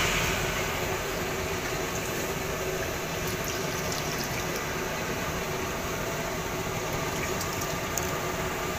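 Wet flour batter for fried snacks being squished and sloshed by hand in a plastic basin as water is poured in, with faint splashes, over a steady background hum of traffic.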